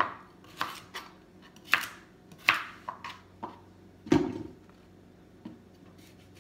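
Knife cutting carrots on a plastic cutting board: a series of separate sharp knocks. About four seconds in comes a duller thud as carrot pieces drop into the stainless-steel inner pot.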